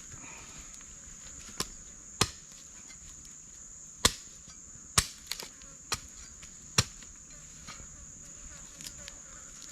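A knife chopping at a wooden stick to cut a roasting spit: about seven sharp, uneven chops over five seconds. A steady high drone of crickets or cicadas runs underneath.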